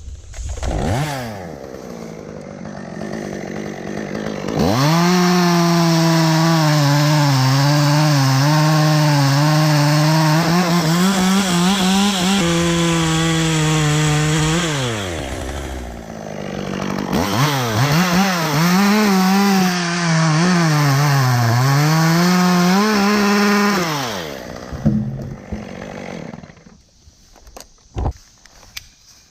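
Two-stroke chainsaw at full throttle making two long cuts, each about ten seconds, its pitch sagging and recovering as the chain bites into the hackberry wood, then dropping back toward idle.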